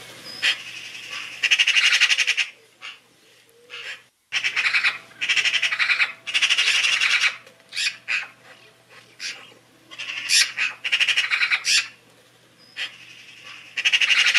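A songbird singing in loud, rapid trilled phrases about a second long, repeated over and over with short pauses between them.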